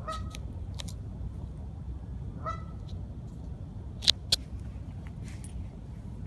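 Canada geese giving two short honks, one at the start and another about two and a half seconds later. Two sharp clicks about four seconds in are the loudest sounds, over a steady low rumble.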